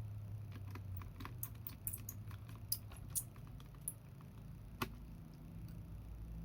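A string of small, sharp clicks and light taps, about a dozen over four seconds, from laptop parts and tools being handled, over a steady low hum.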